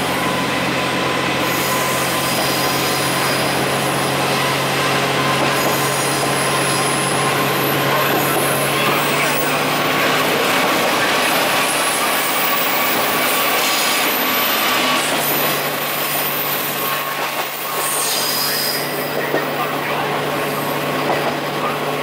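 A diesel railcar pulling away and gathering speed, heard from inside the car: the engine runs with a steady drone over the rumble of wheels on rail. About two-thirds of the way through, the engine note dips briefly, then comes back.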